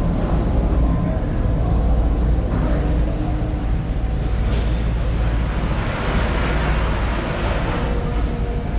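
Fish market hall ambience: heavy wind rumble on the microphone over a steady hubbub with faint distant voices.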